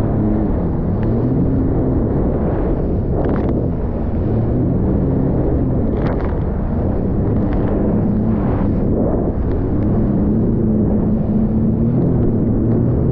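Sea-Doo personal watercraft engine running under way, its hum rising and falling with the throttle, over the rush of water and spray against the hull.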